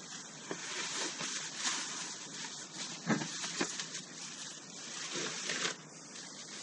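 Bubble wrap crinkling and rustling as it is handled, with a few sharper crackles about halfway through.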